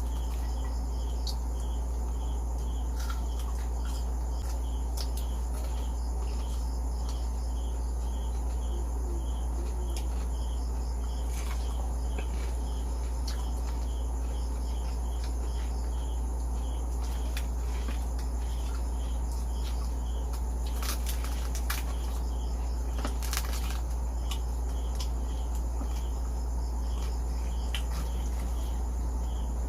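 A steady low hum under continuous, evenly repeating insect chirping, typical of crickets, with a few scattered sharp crunches or clicks of crispy pork being eaten.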